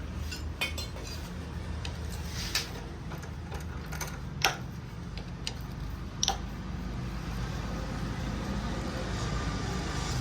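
Hand tools clicking and clinking on metal as the two 10 mm bolts holding the front sprocket of a Hero Splendor motorcycle are undone, with a sharp click about four and a half seconds in, over a steady low hum.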